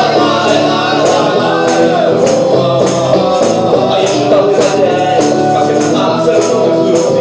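Acoustic band playing a song live, with light percussion ticking in a steady beat about three times a second over pitched instruments.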